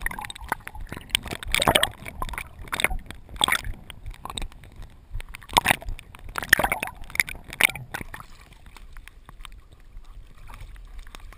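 Pool water sloshing and splashing at the waterline around a swimming German Shorthaired Pointer, with the dog-mounted camera's housing dipping in and out of the water. The splashes come unevenly and grow quieter for the last few seconds.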